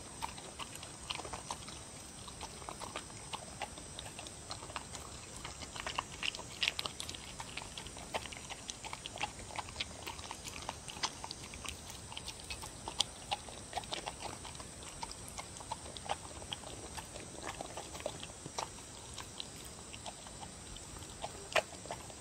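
Dog eating seaweed, dried pollack and beef soup from a bowl: quiet, uneven wet chewing and lapping, with many small sharp clicks and smacks.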